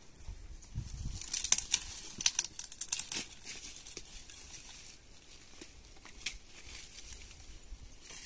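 Crinkling and crackling, densest from about one to three seconds in, then thinning to scattered faint clicks.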